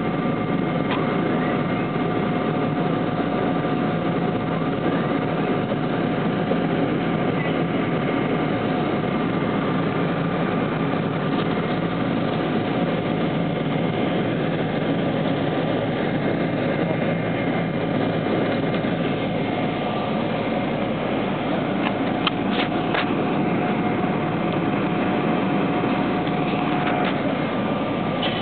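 Steady cabin noise inside a Boeing 777 on the ground: the hum of the jet engines and cabin air with a constant high whine over it. A few faint clicks come about three-quarters of the way through.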